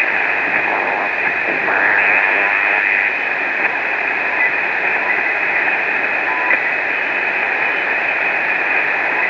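A homebrew multiband BITX transceiver's receiver audio while it is tuned across the 40-metre band in lower sideband: a steady hiss of band noise, with brief faint whistles from signals swept past. Little comes through on an inverted-V antenna only 6 metres up, which the operator calls not very good.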